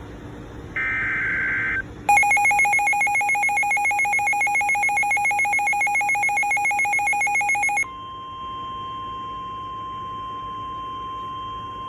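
Emergency Alert System alert tones: a one-second burst of the digital header's data tones, then about six seconds of a loud, rapidly pulsing two-tone attention signal, then a steady single alert tone near 1 kHz, the weather-radio warning tone, that starts about eight seconds in.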